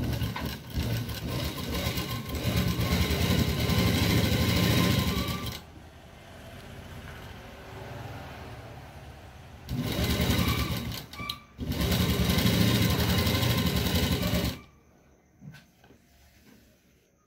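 Sewing machine stitching through satin fabric in runs: a long run, a quieter spell of a few seconds, then two shorter runs close together, and it stops a few seconds before the end.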